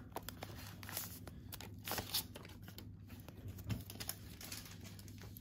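Foil wrapper of a Pokémon Shining Fates booster pack being torn open and crinkled: scattered crackles, the loudest about two seconds in.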